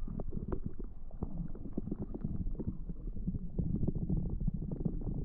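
Muffled low rumble thick with crackling and clicking: water moving against an action camera's housing while it films underwater.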